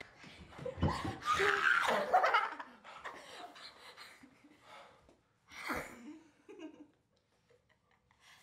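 A woman and a man laughing together, loudest in the first two seconds. The laughter then dies down into shorter, softer laughs, with one more brief burst near the six-second mark.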